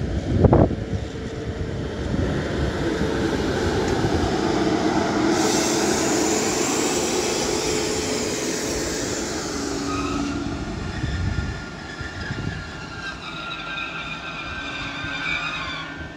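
DB Regio double-deck regional train hauled by a Class 112 electric locomotive passing close by: a steady rush and rumble of wheels on rail, with a short low thump about half a second in. In the last few seconds the sound thins and high ringing tones come through.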